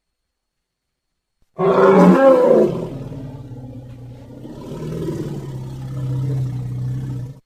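Elephant call: after a second and a half of silence, a loud roar breaks in, then drops into a lower, steady rumble that swells again before cutting off abruptly.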